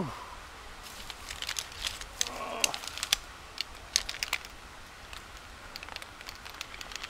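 Aluminium leg frames and plastic joints of a folding camping cot clicking and clattering lightly as they are handled and gathered together, in a string of short, irregular clacks.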